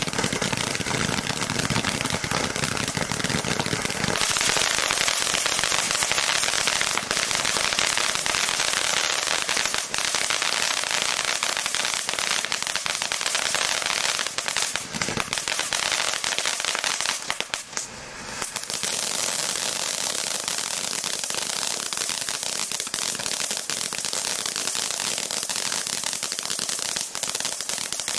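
Happy Boom Peacock Fountain ground fountain firework burning: a steady hiss of spraying sparks thick with crackling pops. It dips briefly about two-thirds of the way through, then picks up again.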